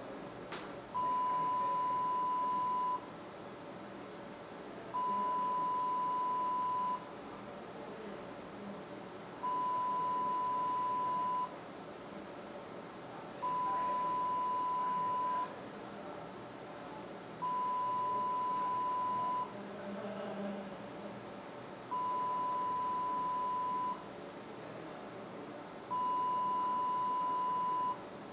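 An electronic alarm beeper sounds a steady high tone lasting about two seconds, repeated seven times about every four seconds.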